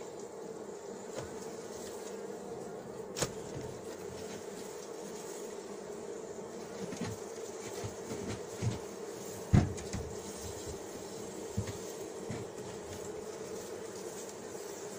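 Honeybee colony humming steadily in an opened wooden hive. A few sharp knocks and clicks come from the metal hive tool against the wooden frames, the loudest about nine and a half seconds in.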